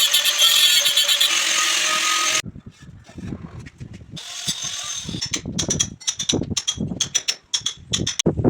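A power tool runs on stainless steel and cuts off abruptly about two and a half seconds in. A quick, irregular series of ringing metal clanks and taps follows.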